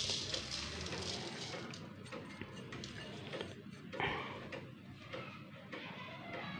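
Ground spices tipped and scraped off a ceramic plate into a stainless steel bowl of lasoda berries: a faint rustling hiss that fades after the first second, with light ticks and a soft knock about four seconds in.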